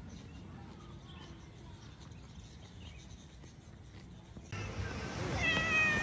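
A cat meows once near the end, a single drawn-out call falling slightly in pitch. Before it there is only faint outdoor background.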